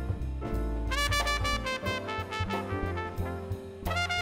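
Jazz-style theme music with brass horns carrying the melody over a walking bass line and a steady beat.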